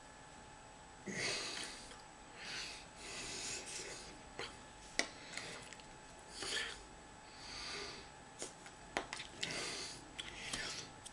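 Soft breathy puffs and rustling from a man signing, his hands brushing together and against his shirt, with a few light clicks between them, in irregular bursts of about half a second.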